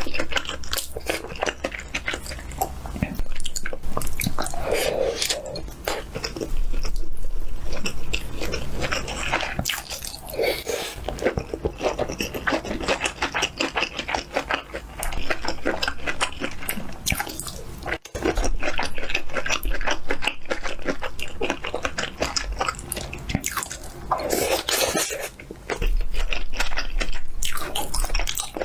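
Close-miked chewing and biting of someone eating potato and sausage dry pot with rice, the wet mouth noises going on steadily with a few short pauses.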